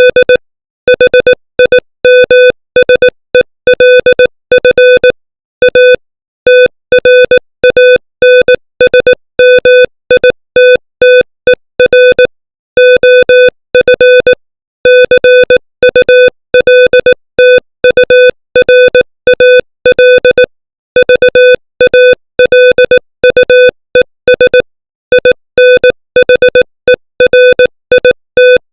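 Morse code sent at 18 words per minute: a single buzzy mid-pitched beep keyed on and off in short dots and longer dashes, with short gaps between letters and longer ones between words.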